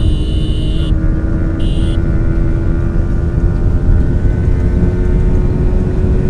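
Yamaha R15's 155 cc single-cylinder engine held at steady revs at speed, under heavy wind rush on the microphone. A high electronic beep cuts off about a second in, and a second short beep comes about two seconds in.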